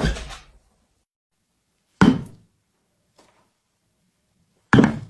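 Sharp knocks, each dying away quickly: one about two seconds in, a faint one a little later, and a loud one near the end.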